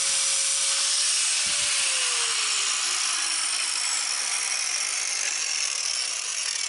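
Angle grinder with a grinding disc cutting into a cast-iron grill grate to widen a slot: a steady grinding hiss, with the motor's whine dropping in pitch about two seconds in.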